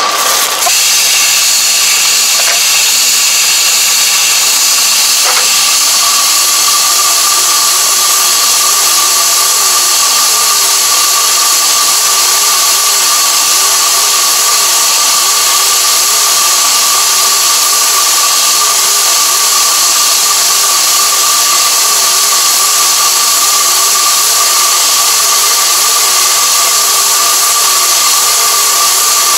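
WM1061A round-bale wrapper running, turning a rice-straw bale as stretch film wraps around it: a loud, steady mechanical whine and hiss, with a lower tone that wavers up and down as the bale turns.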